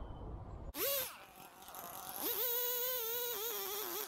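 Chainsaw engine starting suddenly just under a second in, revved up once and dropping back, then held at high revs from about two seconds in with its pitch wavering, as under load in a cut.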